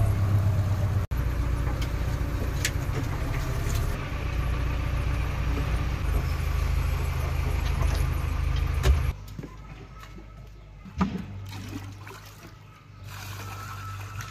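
Four-cylinder diesel engine of a JCB 3DX backhoe loader running steadily while driving, heard from inside the cab. The sound cuts off abruptly about nine seconds in, leaving a much quieter low hum and a single knock.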